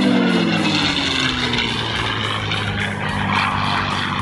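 P-51 Mustang's Merlin V-12 engine running as the fighter flies past overhead, its pitch falling over the first second and a half and then holding steady.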